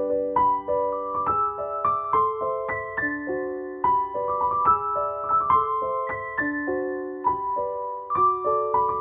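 Background music: a piano playing gentle broken chords, about two to three notes a second, each note ringing on under the next.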